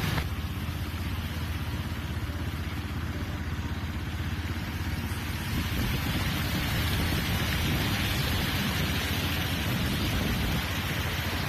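Steady rushing noise of a rainstorm with vehicles driving through floodwater, the sound changing about half a second in and again around six seconds in.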